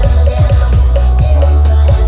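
Very loud electronic dance music with a heavy bass floor and a fast kick-drum beat, about four beats a second, played through a giant stacked outdoor sound system.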